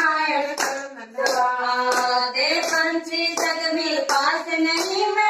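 Women singing a Rajasthani devotional bhajan together, keeping time with steady hand claps about every half to three-quarters of a second.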